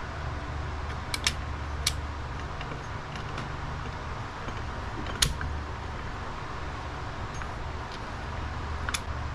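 A few sharp metallic clicks and clinks as motorcycle clutch plates are handled, over a steady low hum in the background.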